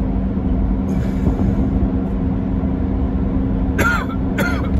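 Steady road and engine drone inside a moving car's cabin. Near the end a person coughs twice in quick succession, a smoker's cough in a smoke-filled car.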